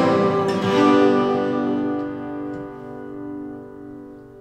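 Acoustic guitars strum a final chord about half a second in and let it ring out, the chord fading slowly away: the close of a folk song.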